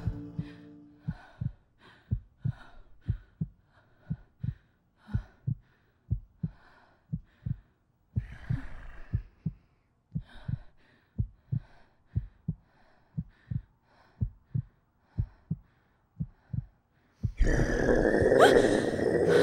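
Heartbeat sound effect: a steady run of low, dull thumps, about two a second, a tension cue. Near the end a sudden loud swell of sound cuts in over it.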